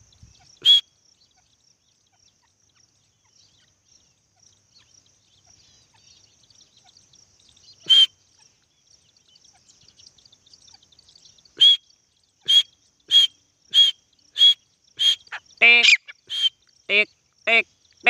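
Grey francolins calling: a single high, sharp note near the start and another about 8 seconds in, then a fast run of repeated calls, about one every 0.6 seconds, the later ones lower and fuller.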